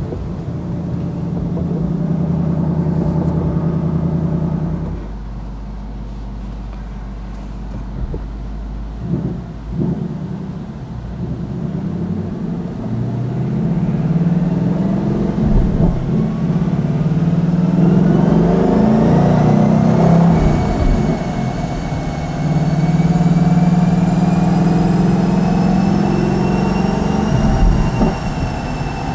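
Ford Mustang Dark Horse's 5.0-litre V8 on a chassis dyno, just started, running at a high idle that settles to a lower idle after about five seconds. It is then driven up on the rollers: the revs climb with a rising whine, drop back at a gear change about two-thirds in, and hold steady near the end.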